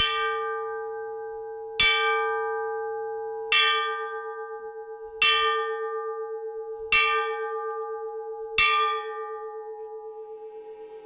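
Bronze church bell cast in Riga in 1889, rung with six strokes about every 1.7 seconds. Each stroke rings on into the next, and the hum wobbles slowly as it fades after the last.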